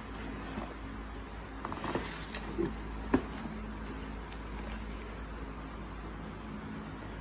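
Cardboard shoebox being handled and lifted out of a cardboard shipping carton: rustling and scraping of cardboard, a light knock and then a sharper one about three seconds in, the loudest sound.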